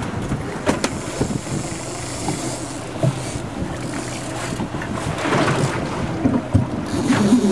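A boat engine running under steady wind noise on the microphone. A few short knocks come from handling a landed king salmon and the landing net on the aluminium deck.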